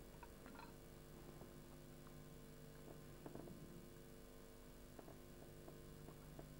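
Near silence: a low, steady electrical hum with a few faint ticks.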